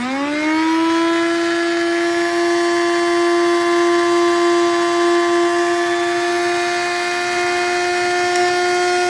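Cuisinart DBM-8 electric burr coffee grinder's motor spinning up to a steady high whine in about half a second and running evenly. It is switched off at the very end and begins to wind down, falling in pitch.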